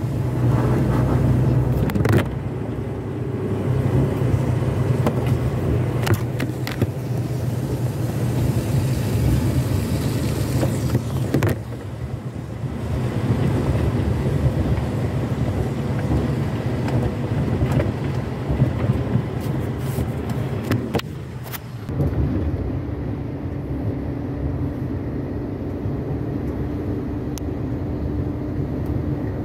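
Truck engine running with road noise, heard from inside the cab. About three-quarters of the way through, the sound changes abruptly to a steadier hum.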